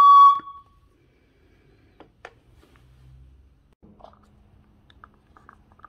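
A loud, high, steady whistle that cuts off about a third of a second in: air escaping through a coolant reservoir cap fitted to a hand-pump cooling-system pressure tester. After it come faint clicks and handling of the tester.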